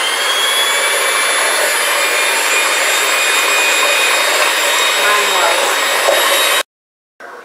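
Electric mixer running at speed, its beaters whisking instant coffee, sugar and hot water into foam in a stainless steel bowl: a loud, steady motor whine. It stops abruptly about six and a half seconds in.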